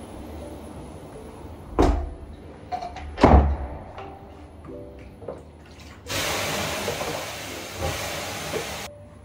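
Water ladled from a wooden bucket onto the hot stones of a sauna heater, hissing into steam for about three seconds before cutting off sharply. Two dull thumps come earlier, in the first few seconds.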